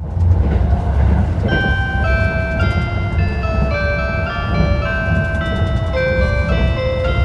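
A train's onboard chime melody: a tune of clear ringing notes that starts about one and a half seconds in, over the low rumble of the train running.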